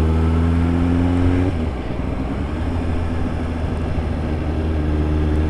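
Suzuki GSR750's inline-four engine through an S P Engineering tri-oval aftermarket exhaust, pulling with a slowly rising note that drops away about a second and a half in, then running on at a steadier, lower note.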